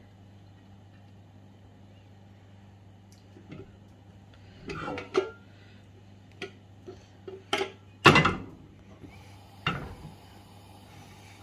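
A non-stick frying pan knocks and clatters against the metal grate of a gas hob as it is lifted, tilted to swirl thin batter, and set back down. The knocks come in a scattered run, the loudest about eight seconds in, over a low steady hum.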